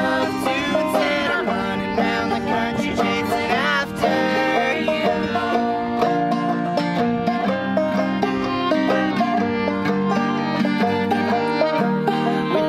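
Acoustic string band playing bluegrass-style music: a five-string banjo picked briskly over a strummed acoustic guitar and a bowed fiddle.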